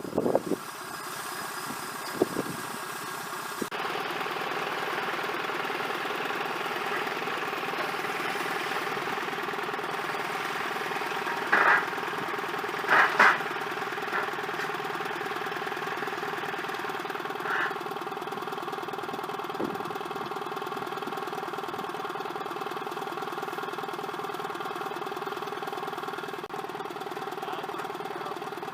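An engine running steadily at idle, with a few short higher-pitched sounds on top about 12 and 13 seconds in.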